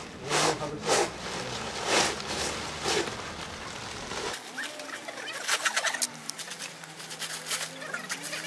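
Crinkling and rustling of plastic protective sheeting being handled on a train's front end, with a low background hum. About four seconds in the sound cuts abruptly to sped-up playback, where the crackles come quicker and sharper over a steady low tone.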